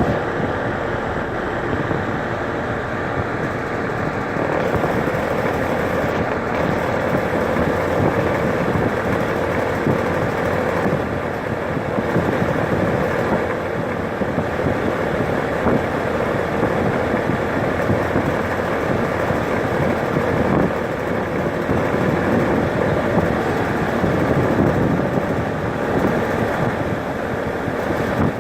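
Rheem air conditioner running steadily: a constant rushing fan noise with a faint hum underneath.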